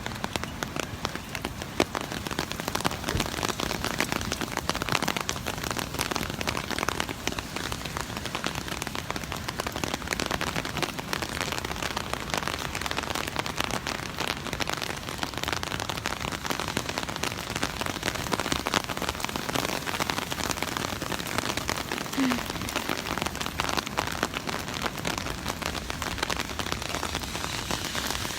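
Steady rain falling, a dense crackle of many drops striking close to the microphone.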